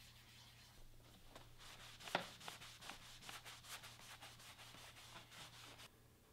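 A cloth rubbing across a dyed leather sheath in quick repeated scrubbing strokes, with one sharp tap about two seconds in. The rubbing stops near the end.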